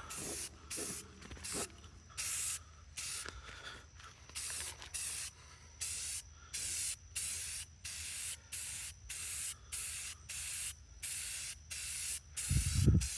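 Aerosol can of spray paint hissing in short repeated bursts, about one and a half a second, as paint is sprayed onto a metal ammo case in quick passes. A brief low thump comes near the end.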